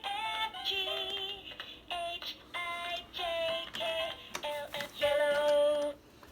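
An electronic children's tune: a melody of held, synthesized notes from a small speaker, stopping shortly before the end.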